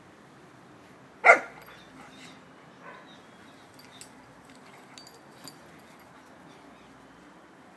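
A golden retriever gives one short, sharp play bark about a second in, followed by a few faint small clicks.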